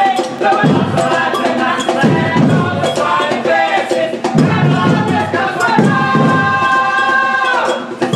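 Brass band playing a marching tune, ending on a long held chord near the end.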